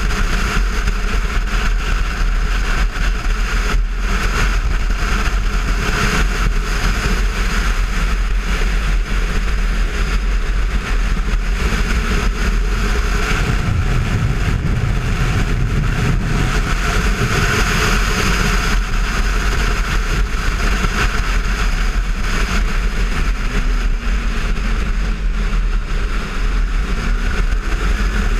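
Ride noise from a Kawasaki Versys 650 at road speed: wind rushing over the microphone, with the bike's parallel-twin engine running underneath. The engine pitch rises slightly near the end.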